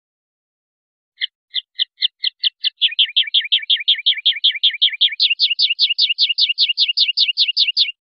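Common linnet singing: a run of short repeated notes that starts about a second in and quickens, then switches to higher, sliding notes about five seconds in, and stops abruptly near the end.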